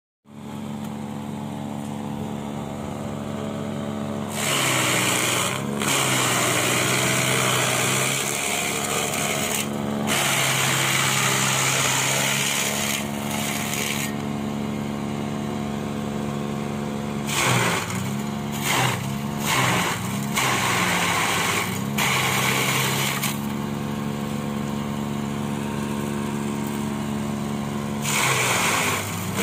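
Electric banana-stem chopper, a 2.2 kW, 220 V motor-driven cutter, running with a steady hum. As banana stalks are fed in there are several long spells of loud shredding noise, and the motor's pitch dips under the load and recovers between feeds.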